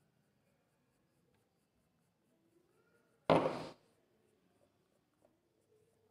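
A charcoal pencil scratching across paper in one short, loud stroke about three seconds in, with near silence around it.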